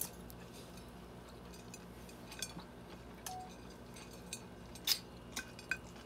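Sparse light clinks and taps on ceramic dinner plates, the loudest about five seconds in, over a faint low steady hum.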